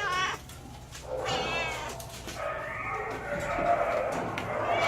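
Shelter cats meowing: a few separate wavering meows, with a longer, lower drawn-out call in the second half.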